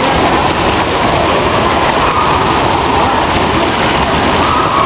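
Steady rush of falling and churning water in an indoor pool hall: arching fountain jets splashing into a lazy river and a bubbling spa.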